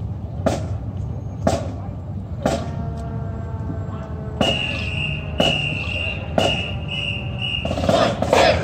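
Marching band drumline keeping a steady beat of about one stroke a second. Faint held notes from the band join in the second half, with a high tone sounding on each beat, and a quick cluster of louder strokes comes near the end.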